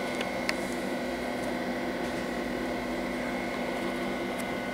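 IBM PC RT 6150 workstation running while it boots: a steady fan and drive whir with a faint high whine, and a couple of faint clicks about half a second in.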